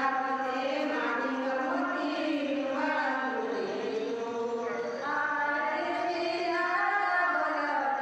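Women singing a Hindu devotional bhajan together, in long held and gliding sung lines.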